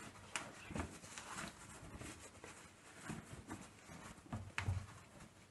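Cloth towel rustling and rubbing in irregular strokes as wet hands are dried, with a soft bump about three-quarters of the way in.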